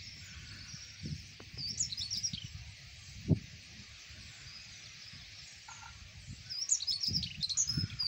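A large flock of starlings chattering as a steady high hiss, with clusters of sharp chirps and whistles about two seconds in and again near the end. Low thumps on the microphone throughout, one sharp and loud about a third of the way in.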